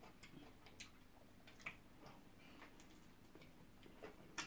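Near silence with a few faint, scattered clicks and smacks: the mouth and finger sounds of people eating pounded yam and ogbono soup by hand.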